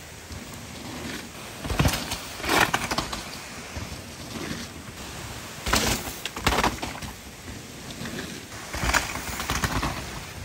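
Mountain bike riding fast down a wet, muddy downhill trail: a steady rush of tyre and riding noise, with several louder noise surges that come in pairs, near two seconds, six seconds and nine seconds in.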